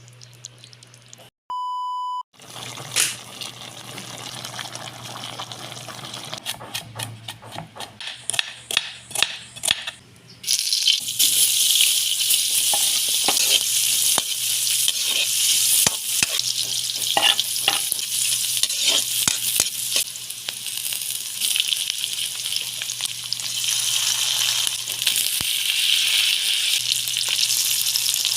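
Food frying in a pan for chicken adobo: a short electronic beep about two seconds in, then scattered clicks of a utensil against the pan. From about ten seconds in, a loud steady sizzle.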